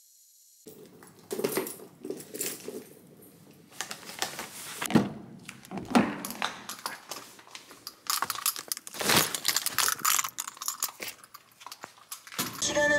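Jangling, clicks and knocks as a car's rear door is opened and things on the back seat are handled, with a few sharp knocks about halfway through.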